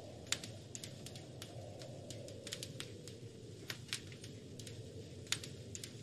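Wood fire crackling in a fireplace, with irregular sharp pops, a few of them louder, over a steady low rush of wind that swells and eases.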